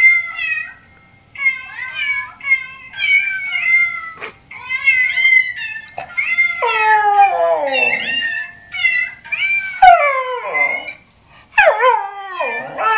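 A musical birthday card plays recorded cat meows, short high calls one after another. About halfway in, a miniature schnauzer joins in, howling along with three long calls that slide down in pitch.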